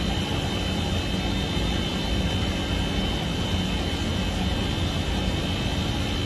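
A loud, steady rushing noise with a deep rumble underneath and a faint high whine, unchanging throughout, like a running machine or fan.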